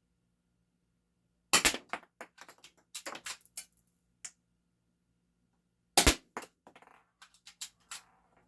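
Game Face M311 full-metal spring-powered airsoft pistol, a 1911 replica, fired twice about four and a half seconds apart. Each sharp shot is followed by a run of smaller clicks and clacks as the stiff slide is worked to cock it for the next shot.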